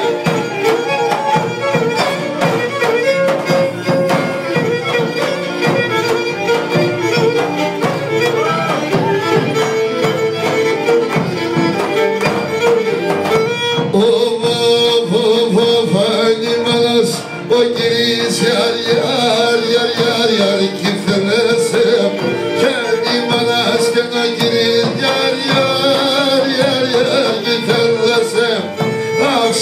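Pontic Greek folk music: a Pontic lyra (kemenche) bowed in a running melody over the steady beat of a large davul drum, with a man singing into a microphone.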